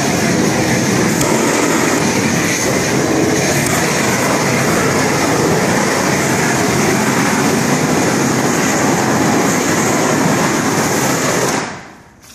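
Propane shrink-wrap heat gun firing: a loud, steady rushing roar of the gas flame, which fades out near the end.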